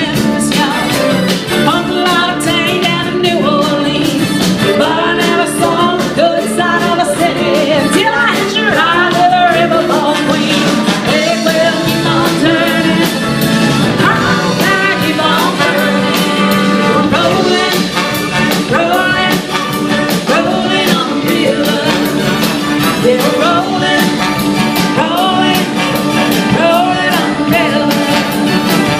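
Live band playing an upbeat rock number without pause: a wavering lead line, sung or played, over a steady bass and drums.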